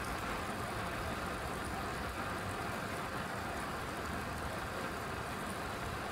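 Steady rushing noise of riding a bicycle at speed: air rushing over the microphone and tyres rolling on the cycle path.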